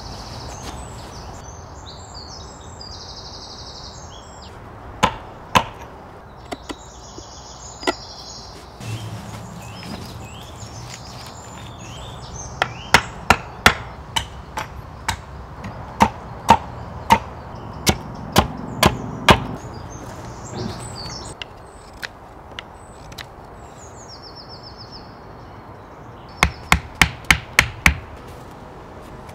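Axe and hatchet blows on wood: a few scattered chops, then a long run of strikes at a chopping block. Near the end comes a quick group of about six knocks from the back of a hatchet driving a wooden stake into the ground.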